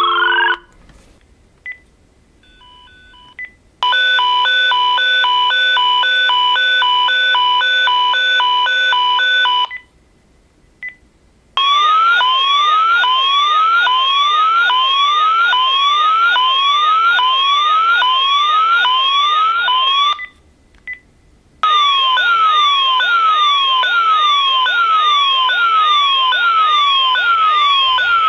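Landline telephone giving off a loud, piercing, high-pitched electronic noise in long siren-like stretches. First comes a steady pulsing chord of beeps for about six seconds. After a short gap come runs of quickly repeated sliding sweeps, about one and a half a second, broken by another brief pause.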